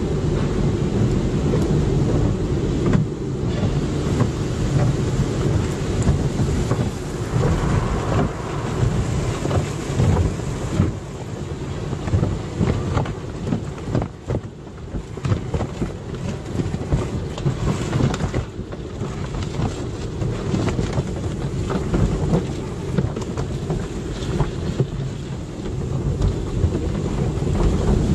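Car wash water spraying and drumming on a car, a loud uneven rushing with a heavy low rumble.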